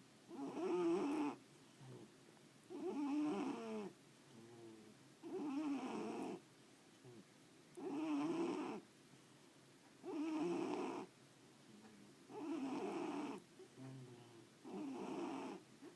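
Snoring: a loud snore about every two and a half seconds, each lasting about a second, with fainter breaths between some of them.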